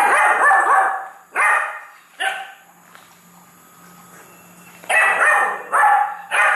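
Beagle puppy barking: three barks, the first drawn out for about a second, then after a pause another three near the end. They are demand barks for more food.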